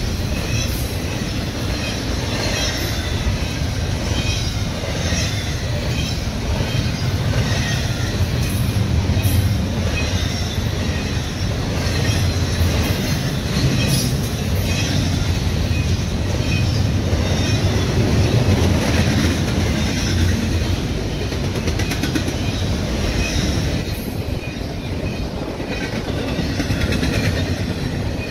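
Double-stack intermodal freight train's well cars rolling past close by: a steady rumble of steel wheels on the rails with repeated clicking.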